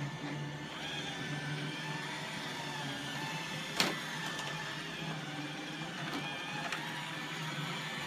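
iRobot Roomba 880 robot vacuum running on carpet: a steady motor and brush hum with a faint whine, and one sharp knock about halfway through.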